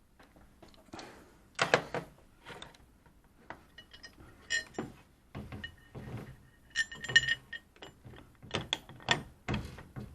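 Metal hinge hardware and hand tools clicking, knocking and clinking at irregular intervals while a refrigerator door hinge is bolted in place, with a couple of short ringing metal clinks.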